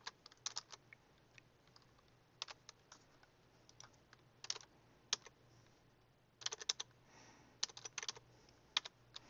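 Typing on a computer keyboard: short runs of key clicks with pauses of a second or more between them, the densest run about six and a half to seven seconds in.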